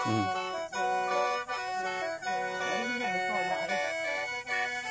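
Lao khaen, a bamboo free-reed mouth organ, being played: several reeds sound together as a sustained chord, with the notes shifting every second or so over it.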